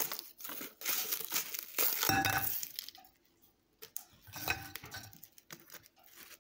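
Plastic biscuit wrapper crinkling as sandwich biscuits are tipped out of the packet, with two light clinks of biscuits or packet against a glazed ceramic plate, about two seconds in and again near four and a half seconds.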